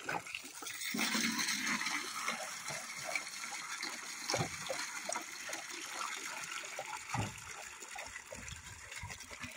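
Water gushing from a hose pipe into a square metal tin, filling it: a steady rush of pouring water, with a couple of dull knocks partway through.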